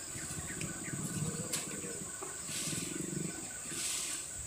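Sweet potato vines and leaves rustling as they are pulled up and hands work in the loose soil, in two soft swells with a small click between them, over a steady high hiss and some low rumbles.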